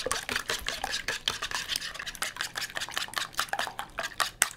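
Wire whisk beating eggs in a plastic mixing bowl: quick, regular ticking strokes against the bowl, several a second.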